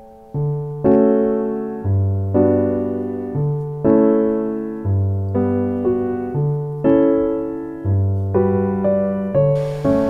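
Background piano music: gentle chords and low bass notes struck in a steady, even rhythm, each ringing and fading before the next. A soft hiss comes in near the end.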